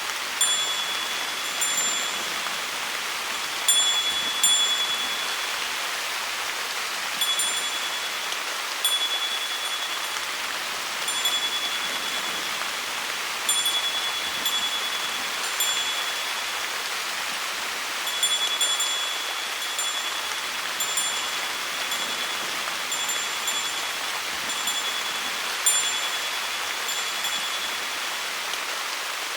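A small wind bell ringing at irregular intervals as it swings in the wind, each strike a bright high tone that dies away, over the steady hiss of falling rain.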